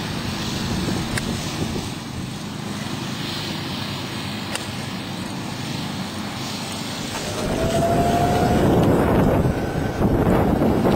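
Two golf club strikes on tee shots, each a sharp click, about three and a half seconds apart, over a steady rumble of wind. From about seven and a half seconds in, a louder rush of wind on the microphone.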